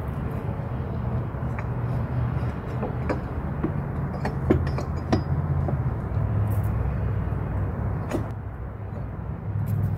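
Steady low engine drone, with several sharp metal clicks and clinks in the middle as the EGR valve is lined up and fitted back against its flange.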